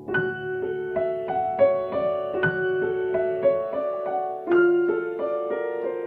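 Grand piano playing a slow, flowing new-age melody over sustained chords, notes struck about three or four a second. A new, louder phrase comes in at the start, with a strong chord about four and a half seconds in.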